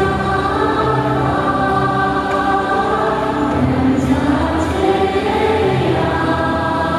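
Choir singing a slow melody over music, the voices holding long notes.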